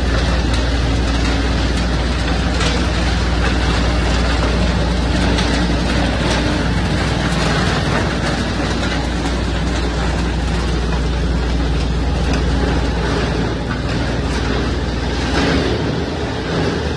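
Electric-motor-driven branch shredder running steadily under load, a constant low hum under a dense grinding noise with scattered small cracks as leafy branches are chopped.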